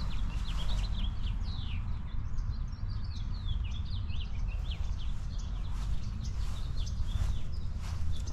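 Many small birds chirping and twittering in quick, overlapping calls, over a steady low rumble.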